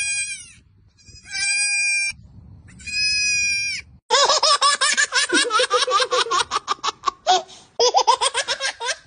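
Goat kids bleating: three short wavering bleats, then a run of about three seconds of rapid, stuttering bleats that tumble together, and another short stuttering run near the end.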